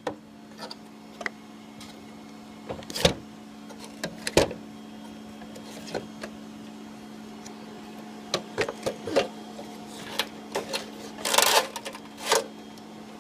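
Sharp metal clicks and knocks as the breaker is pulled and worked loose by hand from a first-generation Prius hybrid battery pack. The clicks are scattered at first and come in quick clusters in the second half, over a steady low hum.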